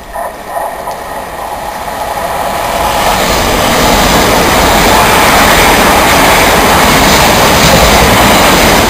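Southern Class 377 Electrostar electric multiple unit running through the station. The rumble of its wheels and motors builds over the first few seconds to a loud, steady rush as the coaches pass close by.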